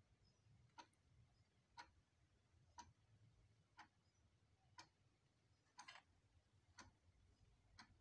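Quartz wall clock ticking faintly, one even tick each second.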